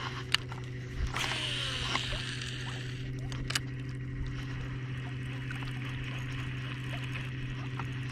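Boat motor running steadily at trolling speed, a low even hum, with a short rustle about a second in and a couple of faint clicks.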